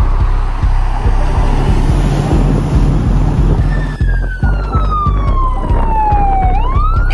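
Background music with a heavy bass beat. About three and a half seconds in, an ambulance siren wail comes in over it, falling slowly in pitch and then rising again near the end.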